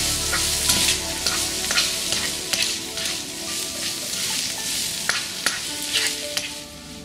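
Minced chicken sizzling in a wok while a spatula stirs and scrapes it around the pan, the sizzle dropping away near the end.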